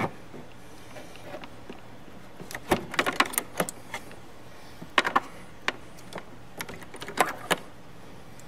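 Hands working wires and blue crimp connectors loose inside a plastic switch housing: scattered light clicks and rattles, bunched about three, five and seven seconds in.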